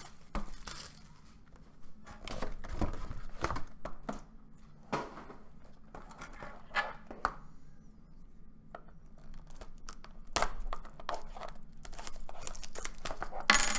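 Plastic shrink wrap on a trading-card box crinkling and tearing as it is picked open, with scattered sharp clicks and taps of cardboard boxes being handled. The loudest tearing rasp comes near the end.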